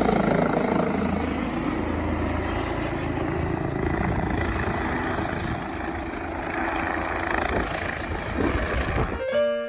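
Helicopter running, a steady loud rotor and engine noise. It cuts off suddenly near the end and piano music starts.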